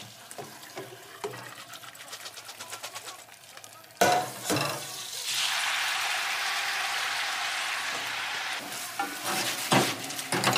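Drained spaghetti going into a pan of hot olive oil: a sudden loud hiss about four seconds in, then a steady sizzle for about three seconds, with stirring and a few knocks of utensils near the end. Before that, only light ticking.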